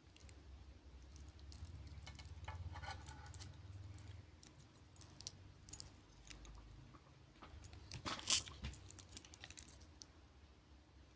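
Handling noise from a new Fossil wristwatch still in its protective plastic: the plastic wrap on the case and steel bracelet crinkles and the bracelet gives light clicks, with one louder crackle about eight seconds in.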